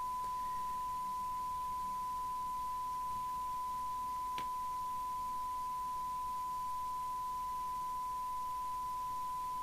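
Steady 1 kHz test tone heard from a President Walker CB radio receiving a tone-modulated signal from a signal generator during alignment, with one faint click about four seconds in.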